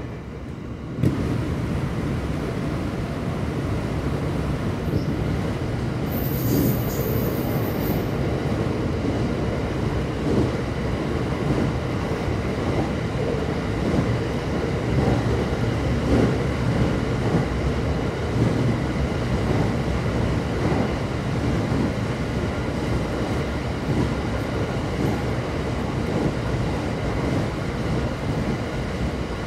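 JR West 227 series electric train running along the line: a steady rumble of wheels on rails that gets louder about a second in. A thin high tone sounds for about two seconds, around six seconds in.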